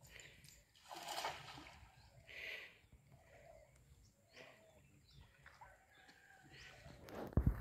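Faint outdoor sounds: light water sloshing as a man wades and drags a branch through a shallow river, with distant bird or chicken calls. A low thump near the end is the loudest sound.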